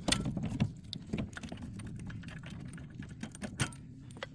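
Scattered light clicks and knocks of hand tools and metal parts being handled, a sharper one at the start and another about three and a half seconds in, over a low steady hum.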